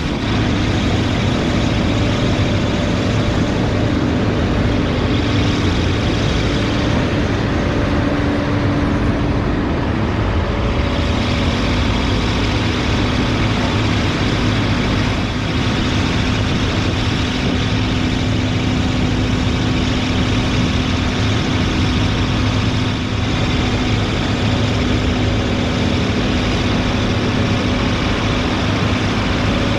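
Tractor and hay grinder running steadily together: a loud, constant machine drone with a steady hum, which drops slightly in pitch about ten seconds in.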